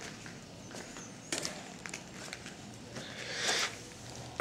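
Quiet footsteps and shuffling on a concrete floor as the camera is carried along, with scattered small clicks and a louder rustle about three and a half seconds in.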